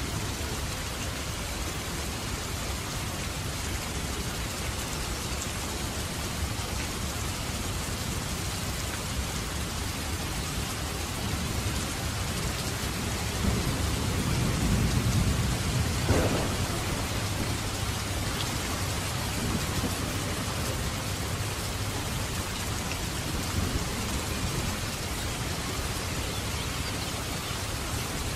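Steady heavy rain falling. Thunder rolls in low about halfway through, swells, and ends in a sharp crack.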